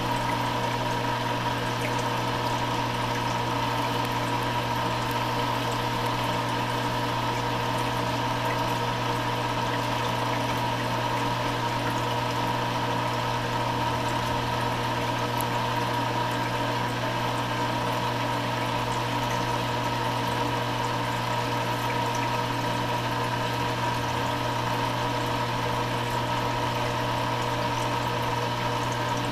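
Reef aquarium sump running: a steady pump hum over the even rush of circulating water.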